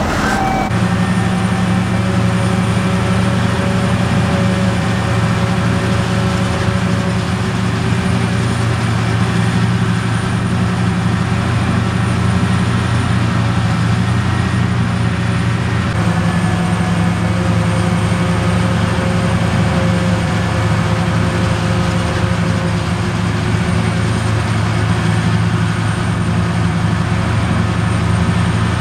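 Heavy diesel farm machinery running steadily under load, with a faint high whine above the deep engine drone; the sound shifts slightly about a second in and again a little past halfway.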